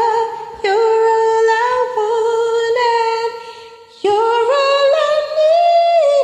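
A woman singing long wordless held notes with a slight waver, close to humming, with little or no accompaniment. Two long phrases, the second climbing step by step in pitch.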